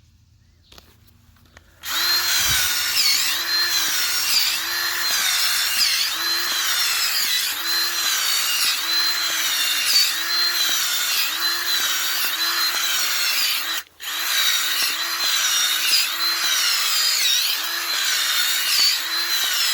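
Power drill turning a garden auger bit into the soil, running steadily with a regular rise and fall in its pitch. It starts about two seconds in, stops briefly around fourteen seconds in, then runs on.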